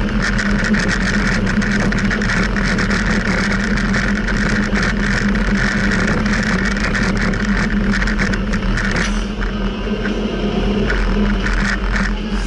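Car cabin road noise while driving over cobblestones: a steady low engine and tyre drone with a dense run of rattles and jolts. About nine seconds in the rattling thins out as the road turns smooth.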